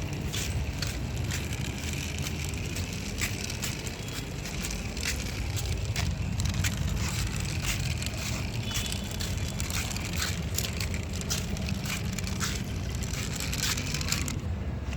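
Toy vehicle's plastic wheels rolling over soil and gravel: a steady low rumble with many scattered crunches and clicks.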